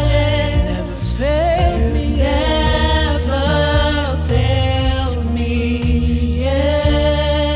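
Worship music: a sung vocal line with long held and gliding notes over steady bass accompaniment.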